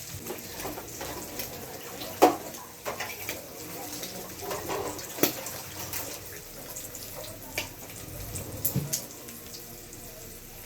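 Water running from a tap into a sink, with scattered knocks and clatters of items being handled in it; the sharpest knock comes about two seconds in.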